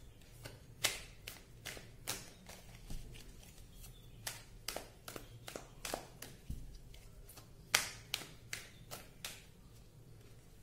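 A run of short, sharp taps or clicks, irregularly spaced at about two or three a second, with a dull thud about two thirds of the way through. The loudest click comes near the end, and the clicks stop shortly before the card reading resumes.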